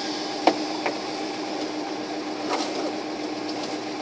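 Small-block V8 of a 1988 GMC one-ton pickup idling steadily, heard from inside the cab, with a few light clicks about half a second in, just before one second and again past the halfway point.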